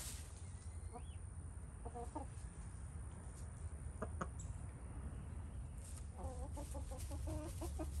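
Hen clucking in short runs of pitched clucks, a brief run about two seconds in and a longer run from about six seconds on, over a steady low hum.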